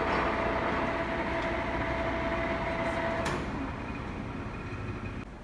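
Monarch 16-inch engine lathe running at 52 RPM with power feed engaged: a steady gear-train and motor running noise with a steady whine. A little over three seconds in there is a sharp click, the whine stops, and the machine runs on a little quieter.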